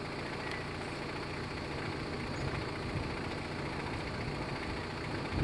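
A vehicle's engine running, a steady low rumble with road noise.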